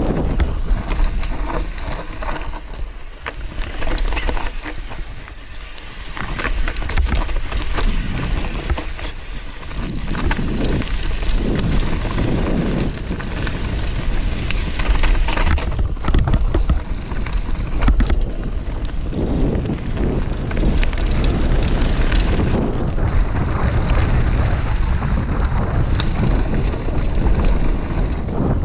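Mountain bike descending a dirt trail at speed: wind buffeting the action camera's microphone with a heavy rumble, the tyres rolling over dirt and stones, and many quick clatters and knocks as the bike is jolted over bumps.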